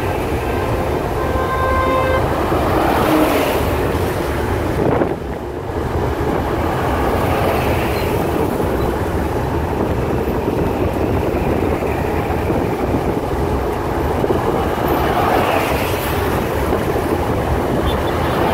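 Moving train running steadily, a continuous rumble and rattle with a horn sounding in the first two seconds; the sound is briefly muffled about five seconds in.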